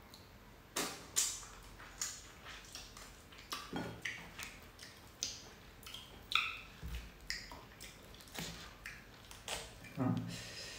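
A person eating pieces of fresh pineapple: irregular short wet clicks and smacks of biting and chewing, roughly one or two a second.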